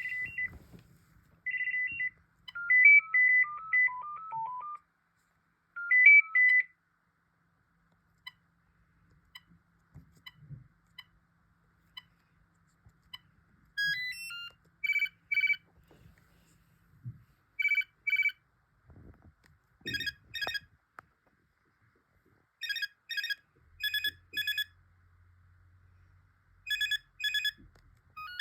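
BT Everyday phone playing its electronic ringtones: first a short tune of high beeping notes that steps down in pitch, then, after a pause with a few faint clicks, a warbling trill ring that comes in repeated short bursts.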